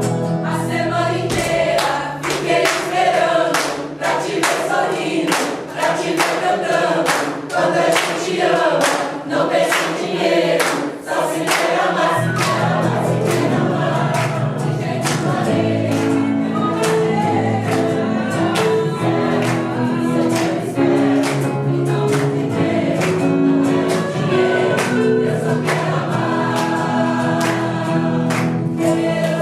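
Choir singing. For roughly the first twelve seconds a sharp, regular beat runs under the voices; then the beat fades and lower voices come in on held notes.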